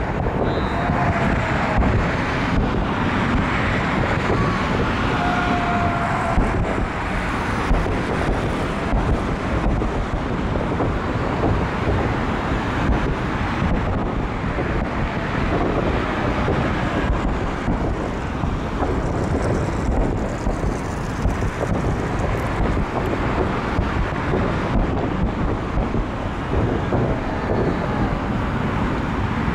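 Dense aerial fireworks barrage: a continuous rumble of many overlapping shell bursts and crackles, with a few short whistles in the first several seconds.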